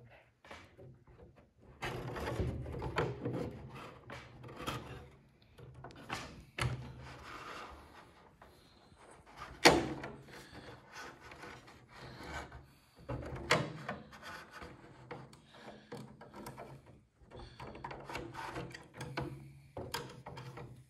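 Irregular rubbing, scraping and light knocking of a guide rod and long metal forceps against the wooden fuselage frame of a model airplane as a servo lead is worked through its holes. There is one sharp knock about ten seconds in.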